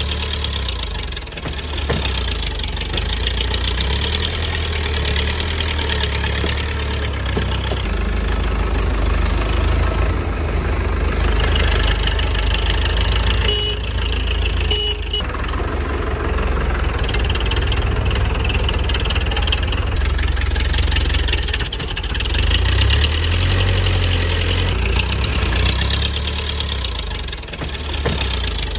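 Diesel tractor engine running steadily at idle, a low, even chugging.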